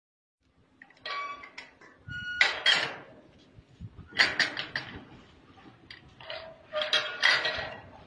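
Welded steel pipe gate and its latch being worked: metal clanks and clinks in four bursts, some with a short metallic ring.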